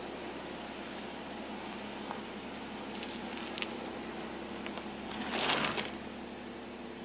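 Porsche Cayman's flat-six running at idle as the car creeps forward on gravel. About five seconds in comes a brief, louder scrape: the car's low nose grounding on the uneven track.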